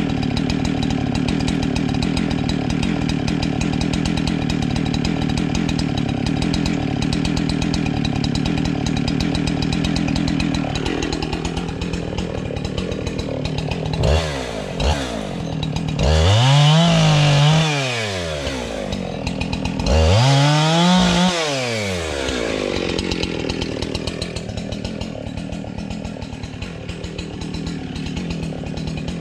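Husqvarna two-stroke chainsaw idling steadily, then revved up hard twice, each rev lasting about two seconds and falling back to idle.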